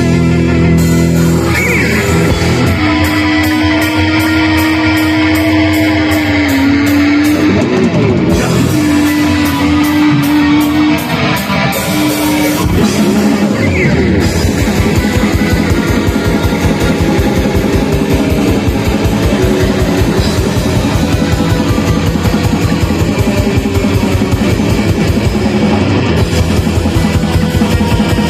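Metal band playing live: distorted guitars, bass and drums. A long held lead note rides over the band in the first half, then the drums pick up into fast, dense playing from about halfway.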